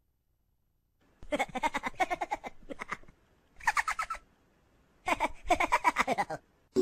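Tabby cat chattering in three runs of rapid, pulsed chirps, starting about a second in: a long run, a short one, then another longer one near the end.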